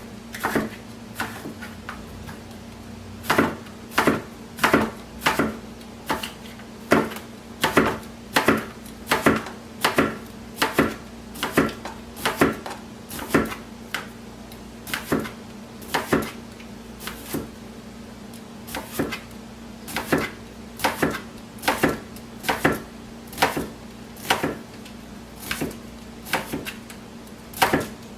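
Knife slicing a cucumber thin on a cutting board: a steady run of sharp knocks, about one to two a second, each stroke striking the board, with a short pause now and then.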